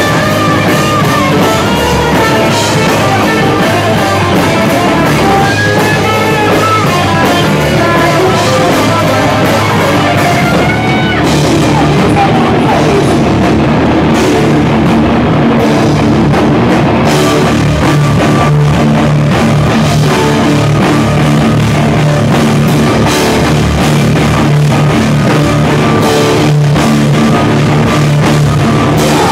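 Hardcore band playing live and loud: electric guitar and drum kit, with the song breaking off at the very end.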